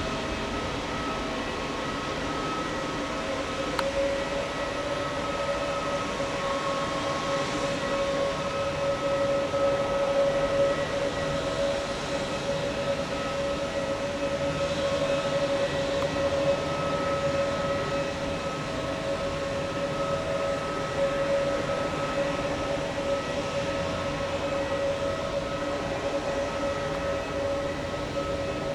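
Airbus A320neo turbine whine running steadily at idle, several held tones over a low rumble, the main tone edging up in the first few seconds before levelling off.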